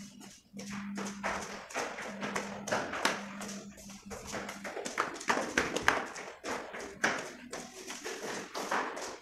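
Footsteps climbing concrete stairs: a quick, uneven run of taps and scuffs, with the climber breathing hard and panting.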